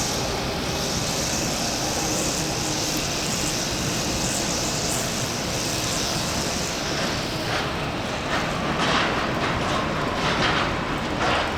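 Jet engines of a landing Boeing 777, a steady loud noise with a strong high hiss. It becomes more uneven and fluctuating in the last few seconds.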